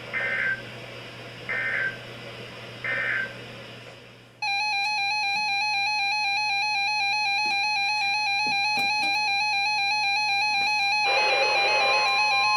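Three short EAS end-of-message data bursts, then about four seconds in a loud electronic alert tone starts, trilling rapidly between two close pitches. Near the end a hiss and a second steady, higher tone join it.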